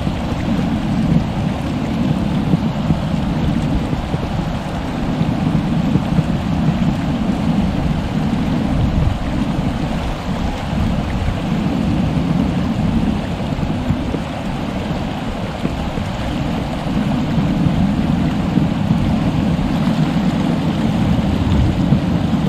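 Stream water rushing steadily, a loud, even wash of noise with a deep low end.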